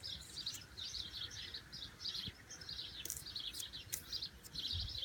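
Small birds chirping over and over in quick repeated calls, with a few faint clicks near the middle.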